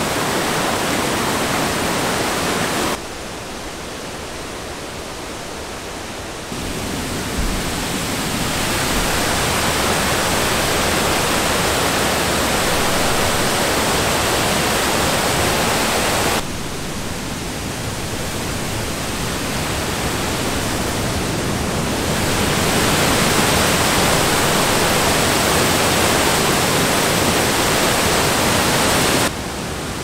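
River waterfall and whitewater rapids rushing over rocks: a loud, steady rush of water whose loudness steps up and down several times.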